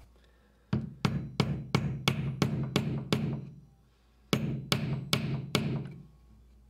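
Hammer driving small nails into strips of oak on a wooden workbench: a quick, even run of about eight strikes, a short pause, then four more.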